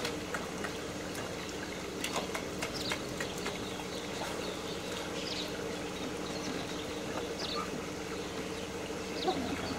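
Pool water lightly splashing and trickling around a submerged wire dive cage, over a steady low hum, with scattered small clicks and a few short high chirps.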